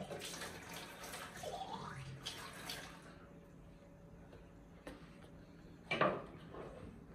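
Tap water running into a small glass jar at a kitchen sink, rising slightly in pitch as the jar fills, then shut off about three seconds in. A faint click follows, and a sharp knock sounds near the end.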